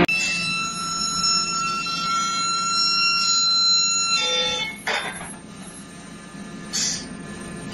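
Induction heating coil whining with several steady high-pitched tones while it heats steel pipe elbows red-hot. The tones stop about four seconds in, and a short burst of noise follows about a second later.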